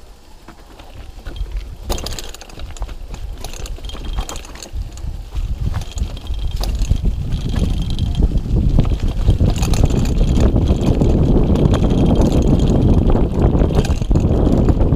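Mountain bike running fast down a dirt trail: wind buffeting the microphone and the tyres rumbling over the dirt grow louder from about six seconds in as speed builds, with scattered rattles and clicks from the bike.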